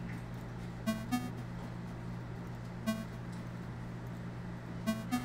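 Short synthesized blips from a Seaquence web-app sequencer loop: a pair of notes about a second in, a single note near the middle and another pair near the end, over a steady low hum. The loop has thinned to a few notes because its steps are being removed from the grid.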